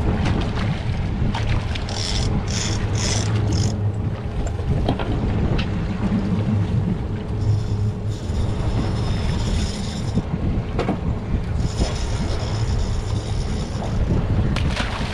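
Outboard engine idling with a steady low hum, under wind buffeting the microphone, with stretches of hissing a few seconds long.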